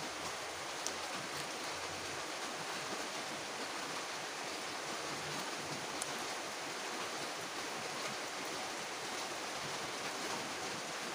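Heavy rain falling steadily, an even hiss with a few faint drips.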